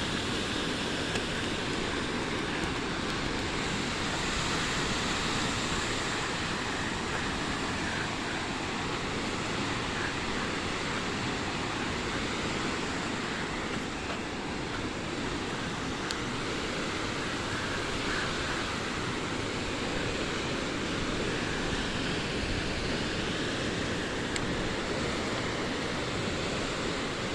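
Steady, even rush of a waterfall's falling water, unbroken throughout.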